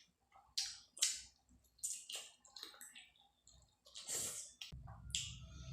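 Close-miked eating sounds: a string of short wet smacks and chewing noises. A steady low hiss comes in near the end.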